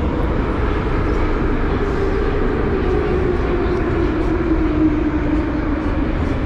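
Ezh3 metro train heard from inside the car as it slows into a station: a steady rumble of wheels and running gear, with a whine that falls in pitch through the second half as the train brakes.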